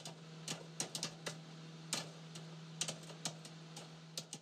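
Irregular light taps and clicks of a paintbrush dabbing acrylic paint onto a stretched canvas, several a second, over a faint steady low hum.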